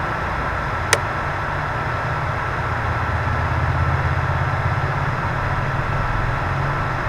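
Steady low mechanical hum with a hiss over it, like a running motor or fan, and one sharp click about a second in.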